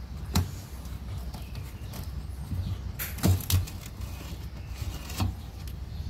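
Handling noise from a front-load washing machine's rubber door seal being pulled off the front panel: a handful of short knocks and clicks, with a cluster of them in the middle, over a low steady hum.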